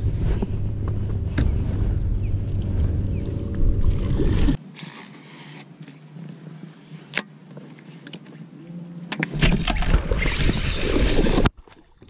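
Outdoor sound on a bass boat's bow: a loud, low, fluctuating rumble that cuts off abruptly about four and a half seconds in. A quieter watery background with a few sharp clicks follows. A loud rushing noise comes near the end and stops suddenly.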